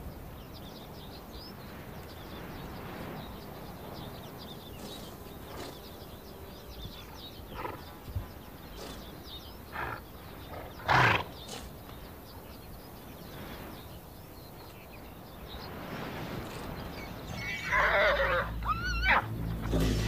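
Przewalski's horses calling, with a few short sharp sounds around the middle, the loudest about eleven seconds in, and a high call falling in pitch near the end.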